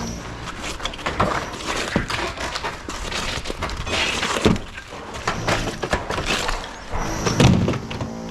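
Irregular knocks, thuds and crashes of hard material being broken or dropped, the loudest about four and a half and seven and a half seconds in.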